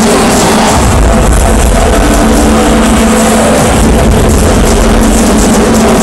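Loud music over a dense, noisy background, with a heavy bass coming in about a second in.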